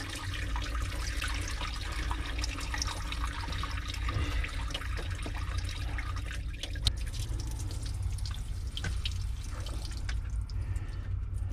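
Water pouring and trickling from the open block drain holes of a 4.3 MerCruiser V6 engine as the block is drained for winterizing, the stream thinning toward the end. A single brief click about seven seconds in.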